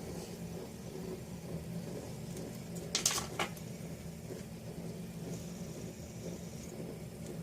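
Fidget spinners still spinning, a faint steady whir from their bearings, with a brief click about three seconds in.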